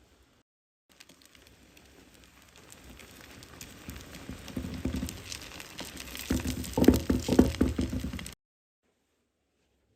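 Food frying in hot oil, a dense crackling sizzle that grows steadily louder and then cuts off suddenly.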